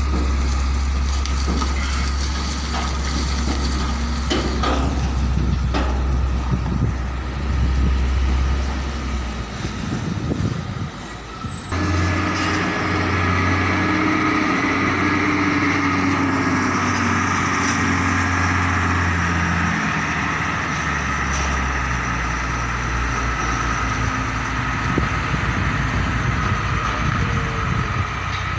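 Diesel engine of a container truck's tractor unit running at low revs as it maneuvers, a steady low hum; the sound changes abruptly about twelve seconds in.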